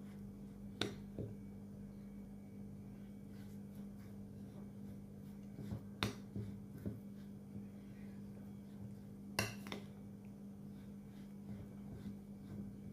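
Metal spoon stirring a thick semolina-and-curd mix in a ceramic bowl: soft scraping with a few sharp clinks of the spoon against the bowl, two of them close together about two-thirds of the way in. A steady low hum runs underneath.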